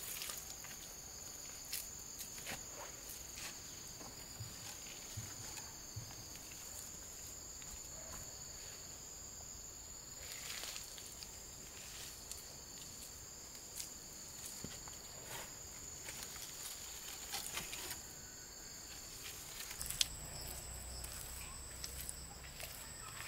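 Insects droning steadily in two high pitches, with scattered light clicks and knocks throughout and one sharper knock about twenty seconds in, after which the drone shifts a little higher.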